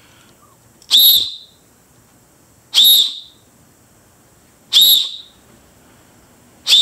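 FOX40 micro plastic safety whistle blown in four short, shrill blasts about two seconds apart, each with a high tone that wavers slightly.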